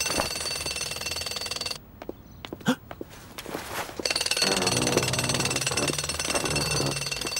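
Cartoon pneumatic drill rattling rapidly. It stops for about two and a half seconds, with only a few knocks, then starts again with a motor chugging under it.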